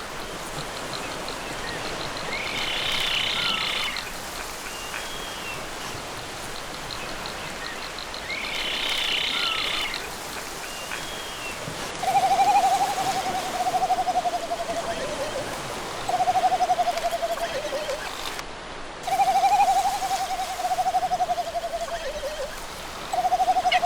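Courting male frigatebirds giving warbling, hooting display calls. From about halfway, four long wavering calls each slide downward, and two bursts of higher chattering come before them.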